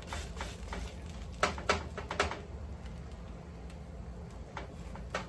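A few light clicks and taps of kitchen utensils against cookware, three close together around the middle, over a low steady hum.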